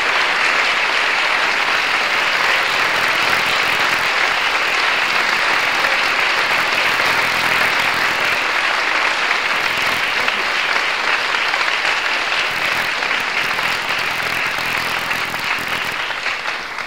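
Audience applauding, a dense, steady clapping that starts dying away near the end.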